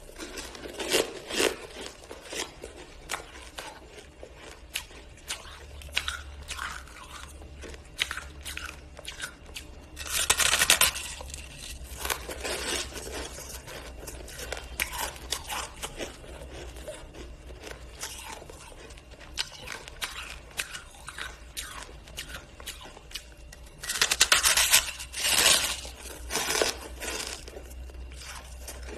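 Close-up crunching and scraping of a frosty block of pink-coloured freezer ice as it is bitten, chewed and scraped with the tongue: a run of small crackles, with louder bursts of crunching about ten seconds in and again about three-quarters of the way through.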